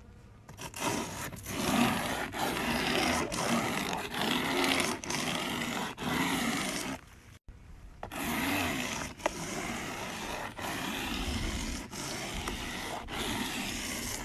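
Metal hive tool scraping old wax comb off a wooden beehive frame: a run of scraping strokes with short pauses between them, and a brief break a little past halfway.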